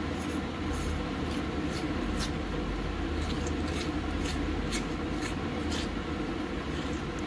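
A metal fork scraping gel out of a cut aloe vera leaf: short, scratchy strokes about once or twice a second, irregularly spaced, over a steady low background hum.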